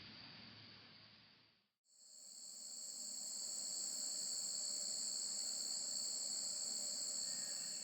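A steady, high-pitched chorus of insects, with no speech. It cuts out briefly about two seconds in, then comes back louder and holds steady.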